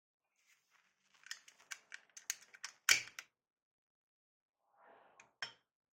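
A quick run of sharp clicks and clacks, the loudest about three seconds in, then a soft rustle and two more clicks near the end: a metal pistol being picked up and handled beside a glass beer bottle.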